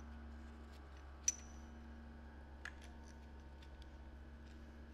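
Light metallic clicks of camshaft bearing caps being lifted off the cylinder head and handled, with one sharp clink and a brief ring about a second in and a softer click a little later, over a steady low hum.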